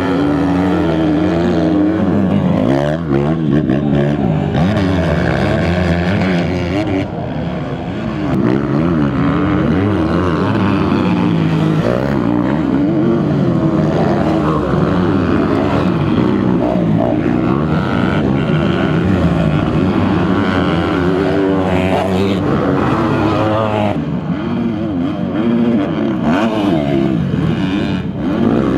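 Motocross dirt bike engines racing, revving up and down in pitch over and over as the bikes accelerate through corners and over a jump, with more than one bike heard at once.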